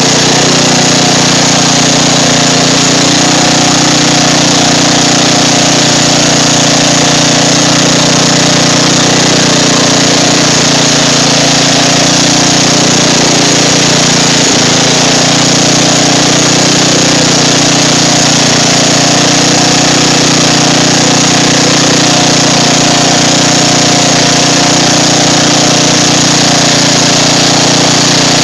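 Riding lawn mower engine running steadily and loud while the front wheel churns through swamp water, with continuous splashing.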